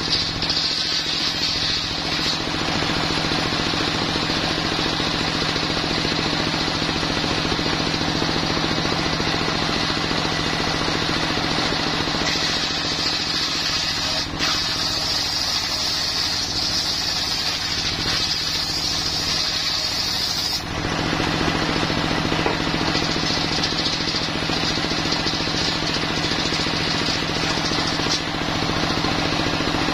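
Homemade engine-driven circular saw table running steadily, its blade cutting through coconut wood with a high hiss over the steady engine tone. The hiss grows stronger and then drops off sharply about two-thirds of the way through, as the blade comes out of the wood.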